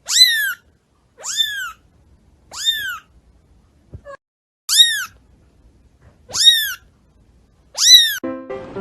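A cat meowing six times in a row, each meow short and high, rising then falling in pitch.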